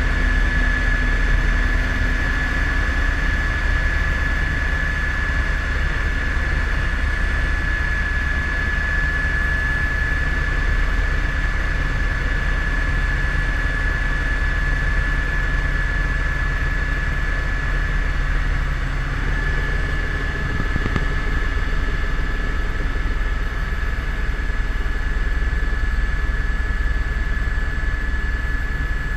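Helicopter in flight: steady rotor and engine noise, a deep rumble with a constant high-pitched whine over it.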